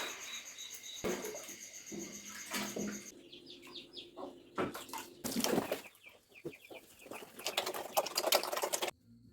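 Farmyard fowl clucking, with scattered knocks and rustling; the sound cuts off abruptly near the end.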